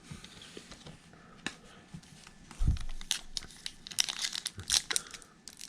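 Foil wrapper of a Topps Chrome card pack being torn open and crinkled by hand, in quick crackling rustles that grow busier in the second half, with a soft thud about two and a half seconds in.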